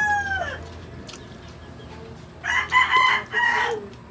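A rooster crowing twice: the falling tail of one crow dies away about half a second in, then a second full crow comes about two and a half seconds in and lasts over a second.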